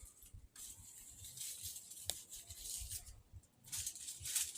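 Faint rustling and scraping from hands at work, with a sharp click about two seconds in.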